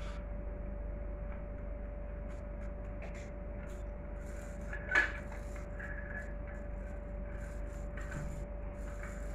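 Plastic toy cars clicking and knocking on a tiled floor, with one sharp knock about five seconds in, over a steady low hum.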